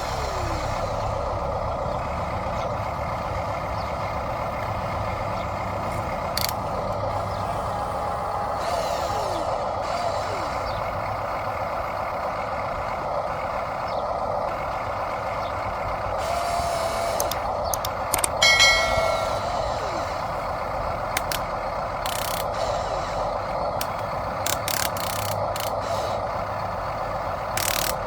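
Hobby-grade RC construction machines (a dump truck and an excavator) running with a steady mechanical hum, scattered clicks, and a brief burst of high beeping about two-thirds of the way through, like a truck's reversing or air-brake sound effect.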